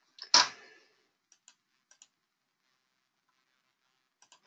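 A short noisy burst close to the microphone about a third of a second in, then a few faint clicks of a computer mouse or keyboard, in two small groups, the last just before the end.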